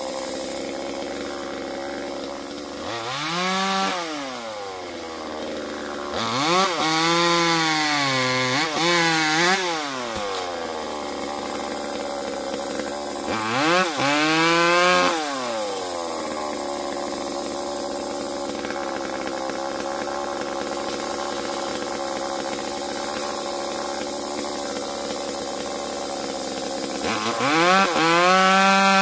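Chainsaw engine idling steadily and revved up to high speed four times, the longest burst held for a few seconds with its pitch wavering up and down.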